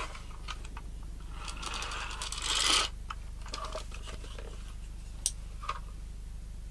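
Hand-handling of a plastic LED strip light, its reel and cable: a scraping rustle that swells for about a second and a half, then a few light clicks. A steady low hum runs underneath.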